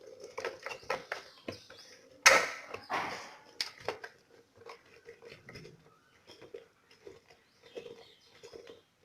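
Lemon halves being squeezed and twisted by hand on a citrus juicer's reamer: a run of small wet squishes and light knocks, with one louder, rasping burst a little over two seconds in.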